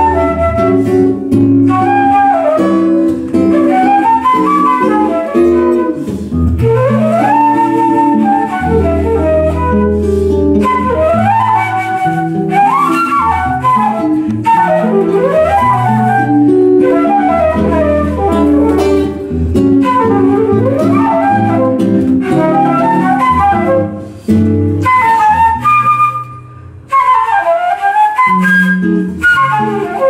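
Flute and archtop guitar playing jazz: the flute carries a melody with quick rising and falling runs over sustained guitar chords. The flute briefly thins out and pauses a little after three-quarters of the way through.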